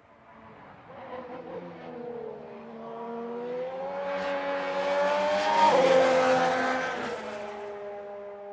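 A Renault-powered 2017 Formula One car's turbocharged V6 hybrid power unit passing at speed. The engine note climbs as the car approaches, is loudest about six seconds in where its pitch drops sharply as it goes by, then fades away.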